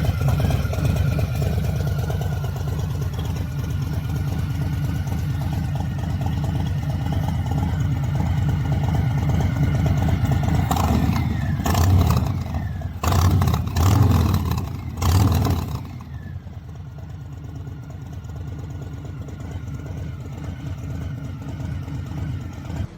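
Harley-Davidson Milwaukee-Eight 114 V-twin idling through a Bassani Road Rage III 2-into-1 exhaust, blipped three times in quick succession about halfway through, then running noticeably quieter.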